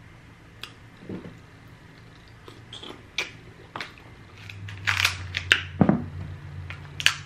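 Close-miked eating of king crab legs: sharp cracks and crunches of the shell with chewing and wet mouth sounds, sparse at first and louder and busier in the second half.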